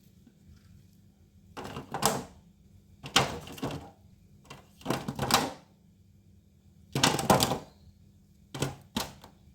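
Disposable aluminium foil tray crinkling and rattling in several short bursts as vegetables are put into it.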